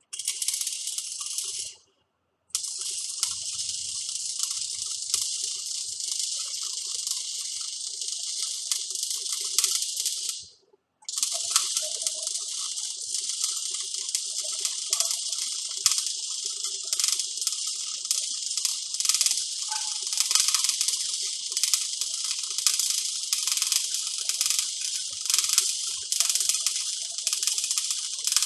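MIG welding arc crackling and sizzling, struck three times: a short burst under two seconds, a run of about eight seconds, then a longer steady run full of sharp pops.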